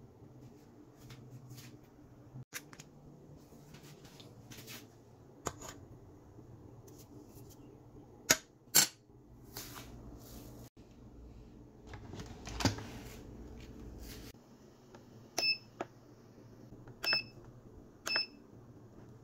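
Cook's Essentials electric pressure cooker's control panel giving a few short beeps near the end as its buttons are pressed to set the cooking time. Before that come scattered clicks and knocks of handling the pot and food, two sharp clicks about eight seconds in being the loudest, over a low steady hum.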